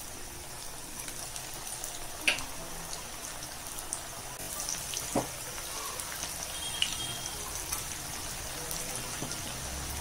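Onion pakoda dough balls deep-frying in hot oil in a kadai: a steady sizzle, with a few sharp clicks, the loudest about two seconds in.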